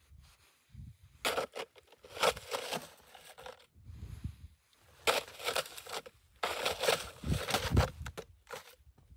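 Snow-laden spruce brush being struck and thrashed with a long-handled hand tool: a run of irregular crunching, rustling hits.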